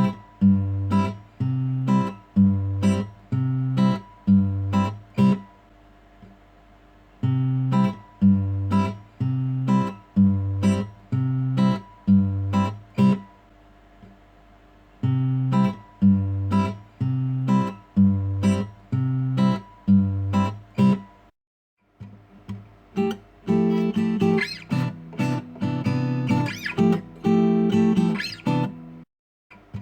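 Background music: acoustic guitar picking a repeating pattern of plucked notes over low bass notes, in phrases with short pauses between them. After a brief cutout about three-quarters of the way through, a fuller section with more higher notes begins.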